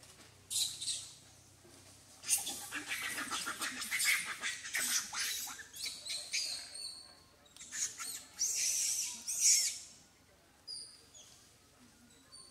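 Bursts of scratchy, crackling rustle over several seconds, then a few short, high, falling bird chirps near the end.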